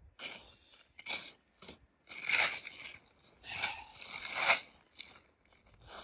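Footsteps crunching in snow and a plastic tarp crinkling as a person steps and kneels onto it, in several separate crunchy bursts, the loudest about two seconds in and again around four seconds in.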